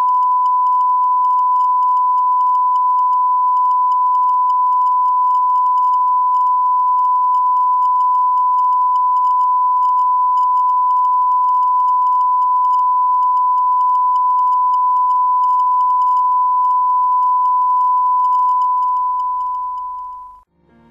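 Steady continuous test tone, the line-up reference tone that goes with a colour bars test signal, fading out near the end.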